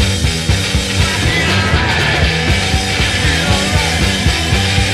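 Rock music soundtrack, loud and steady, with a strong bass line.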